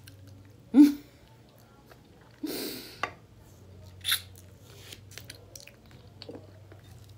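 A person biting and chewing chicken eaten by hand, with a few short wet mouth noises: a loud one just under a second in, a longer one around two and a half seconds, and a sharp one around four seconds.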